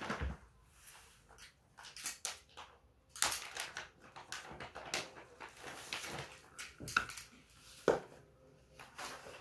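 Plastic building-block pieces clicking and rattling as they are handled and pressed together by hand, a run of irregular short clicks.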